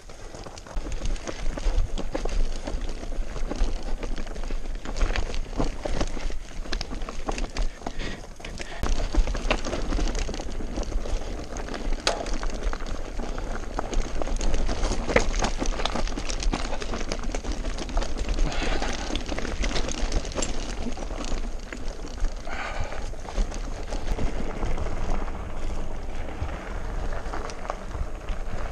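Mountain bike, a Scott Genius 720 Plus, riding over rough, rocky trail: a constant irregular clatter of tyres on stones and rattling frame parts, over a low rumble of wind on the microphone.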